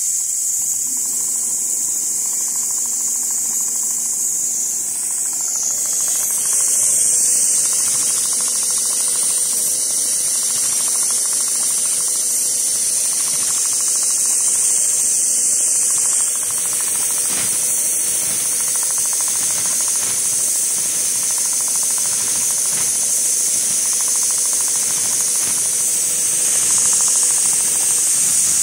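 CNC leather sewing machine stitching a pattern at speed: a steady high hiss with a faint hum underneath.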